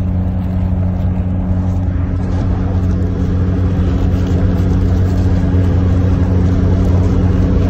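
Steady low drone of engine and road noise inside a moving car's cabin.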